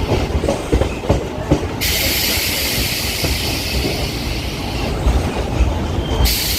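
Suburban electric local train running along the track: a steady low rumble of wheels on rails with a few knocks over rail joints early on, and a loud high hiss that comes in about two seconds in and stays until near the end.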